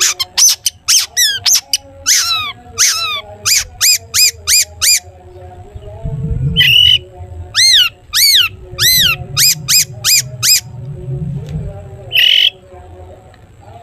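Long-tailed shrike (cendet) singing: a fast run of loud, sharp whistled notes, many sliding down in pitch, then slower arched notes, broken twice by a harsh squawk.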